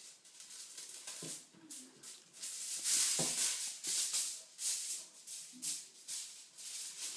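Aluminium foil being handled and folded, crinkling and rustling in irregular bursts, loudest about three seconds in.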